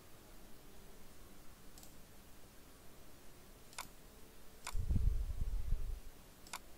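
A few sharp computer mouse clicks, one to two seconds apart, over faint room hiss. About five seconds in comes a low muffled rumble lasting about a second, the loudest sound here.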